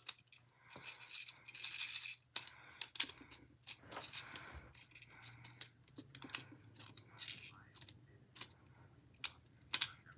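Irregular sharp clicks and short rattles, with a pair of louder clicks near the end, over a faint low steady hum.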